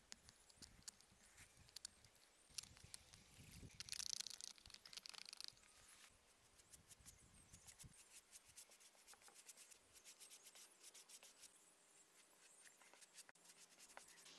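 Faint scraping and brushing: a wooden stick stirring paint in a tin, then a paintbrush stroking paint onto a wooden shield, with a quick run of light scratchy strokes in the second half.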